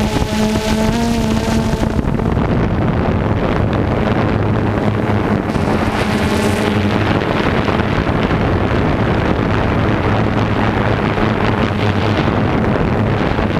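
Farm machinery engine running steadily under load with a low drone, and wind buffeting the microphone.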